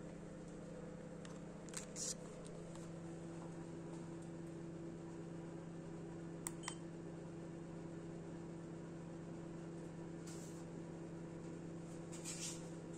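Low steady hum, with a few light clicks about two seconds in and again a little past the middle, and two brief rustles near the end.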